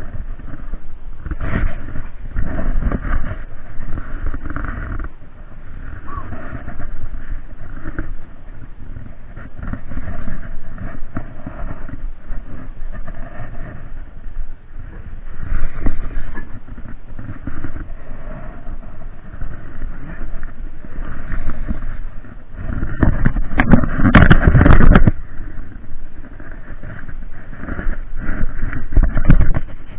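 Wind buffeting the microphone and water noise around a small wooden boat at sea, an irregular rushing with no steady engine note, louder for about two seconds near the end.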